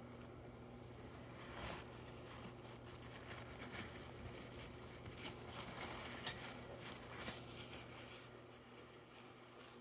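Pet rats rummaging in a dish of chopped boiled egg: scattered soft clicks and rustles, busiest in the middle and thinning out near the end, over a faint steady hum.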